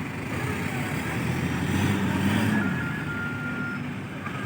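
Dump truck's diesel engine running, revving up and dropping back about two seconds in, while a two-tone reversing alarm beeps and then sounds one longer tone.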